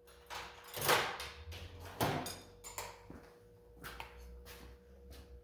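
A handful of short clicks and knocks from small metal brake master cylinder parts and tools being handled on a workbench, the loudest about a second in and again about two seconds in.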